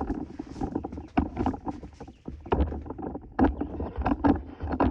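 Handling noise from the camera being picked up and set back upright: a string of irregular knocks and bumps, with the heaviest ones in the second half.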